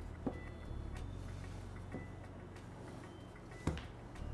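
A few sharp separate clicks and taps from handling the box's cardboard and plastic contents, over a low steady hum.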